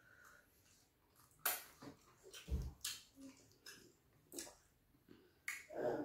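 Eating sounds of fufu with slimy ogbono (draw) soup eaten by hand: scattered wet lip smacks, clicks and chewing, with a couple of dull low knocks, one about two and a half seconds in and one near the end.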